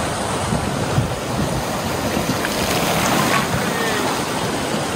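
River rapids rushing and splashing steadily around a bamboo raft as it rides through whitewater.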